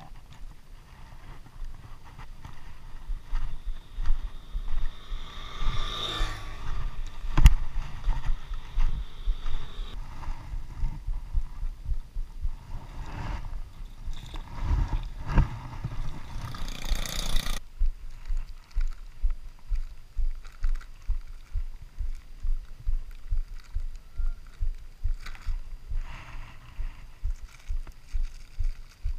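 Low rumbling and thumping handling noise on a body-worn camera's microphone, with scraping and knocks from handling around a third and a half of the way in. In the last part the low thumps come at a fairly regular pace, about two a second.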